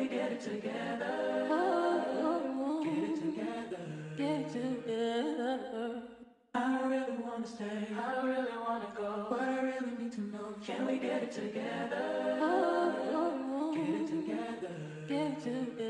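Background vocal music: several layered, harmonised singing voices, sung a cappella or nearly so. It breaks off briefly about six seconds in, then starts again.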